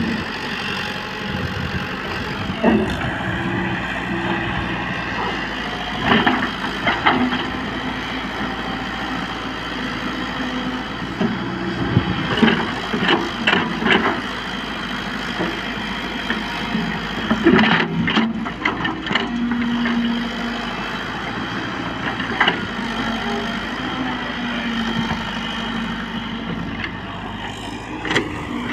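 A JCB tracked excavator's diesel engine running steadily while the machine works its boom and bucket, its track chain thrown off. Irregular metallic clanks and knocks come through over the engine, several in quick clusters.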